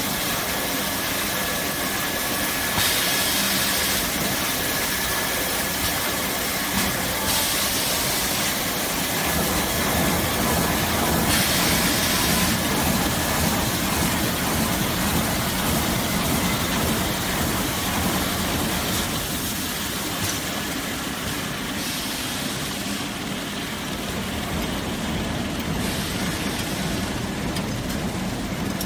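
Automatic toilet-paper roll cutting and packing line running: the log cutter, roll conveyors and packing machine together make a dense, steady machine noise, with a few brighter hissing stretches in the first half.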